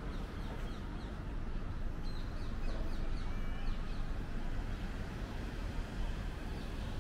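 Birds calling in quick series of short, falling chirps, mostly in the first half, over a steady low outdoor rumble.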